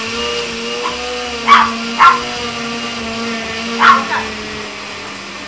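Countertop blender running with a steady motor hum, blending canned ham, pimientos, Cheez Whiz and milk into a creamy sandwich spread. Over it a small dog barks sharply about four times, twice close together about a second and a half in and again near four seconds.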